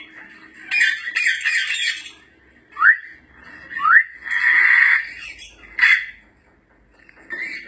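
African grey parrot calls: a harsh squawk about a second in, two short rising whistles a second apart, then another rasping squawk and a brief call, with a short pause before one more call near the end.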